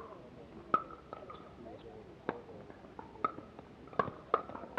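Irregular sharp pops of pickleball paddles striking a plastic ball, each with a brief ringing tone, about two a second.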